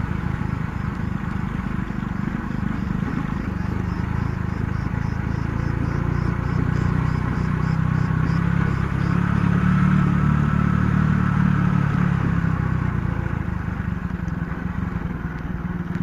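Small 50 cc motorcycle engine running steadily as the bike rides slowly, getting a little louder around the middle.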